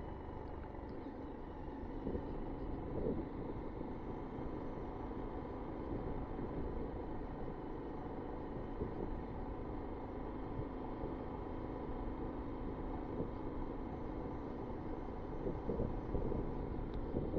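Honda Monkey 125's single-cylinder engine running steadily on the move, with even road and wind noise.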